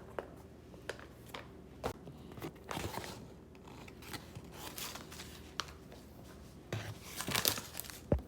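Plastic or paper packaging rustling and crinkling while being handled, with scattered light clicks and taps, busier near the end.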